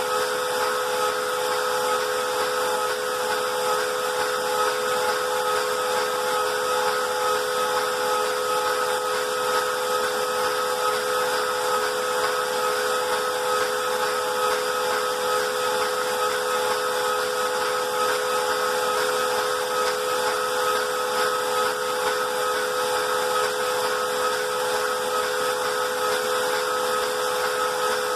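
Moore jig grinder's high-speed spindle running a CBN wheel that is grinding out a pocket: a steady whine of several held tones over a hiss, unchanging throughout.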